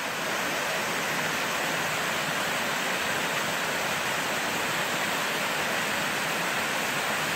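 Steady, even rush of water pouring over a small waterfall into a stream.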